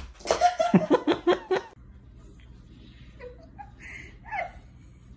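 Laughter in loud, rapid bursts for about two seconds. It is followed by a quieter room with a low steady hum and a few faint short vocal sounds.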